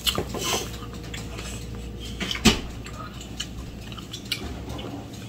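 Scattered light clicks and taps of tableware and food containers during a meal, with one sharper knock about two and a half seconds in.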